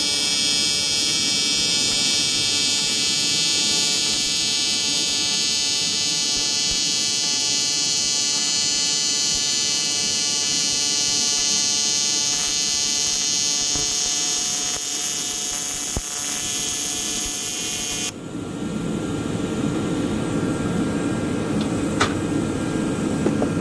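AC TIG welding arc on aluminum from a PrimeWeld TIG 225X, a steady high buzz, cutting off abruptly about 18 seconds in as the run ends. A steady rushing noise remains afterwards, with a few sharp clicks near the end.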